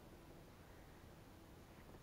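Near silence: only faint background hiss.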